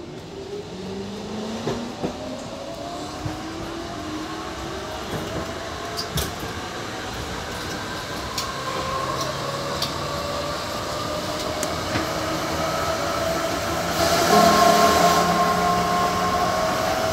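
Hamburg U-Bahn DT3-E train under way, heard from the driver's cab: the traction motors whine in several tones that climb steadily in pitch as the train gathers speed, with scattered clicks from the wheels on the track. A louder hiss comes in about three-quarters of the way through.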